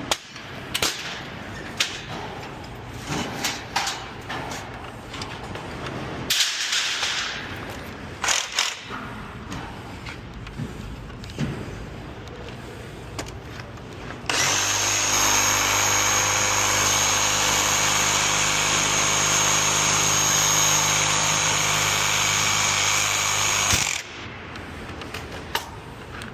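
A handheld power tool runs at constant speed for about ten seconds with a steady high whine, starting and stopping abruptly. Before it come scattered knocks and clicks.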